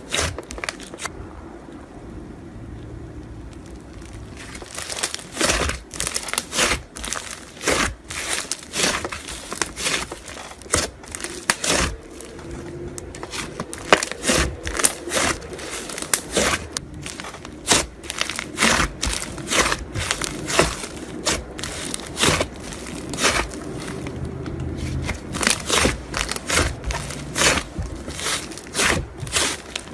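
Slime being worked by hand, giving irregular crackling and popping clicks.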